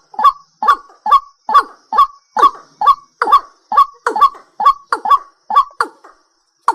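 A night bird calling: a short, loud, honking note repeated about twice a second, with a brief pause near the end.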